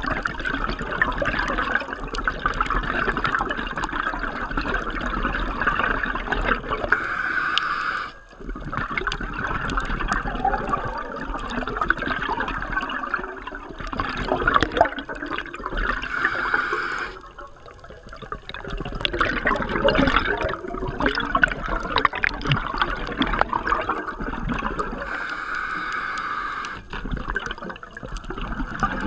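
Scuba diver breathing through a regulator underwater: a long hissing inhale and a crackling bubbling exhale, with a short lull between breaths about every nine seconds.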